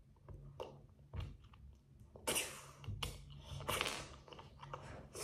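Small plastic building bricks clicking and rattling as a hand rummages through a heap of them, a scatter of light clicks and rustles that is busiest from about two to four seconds in.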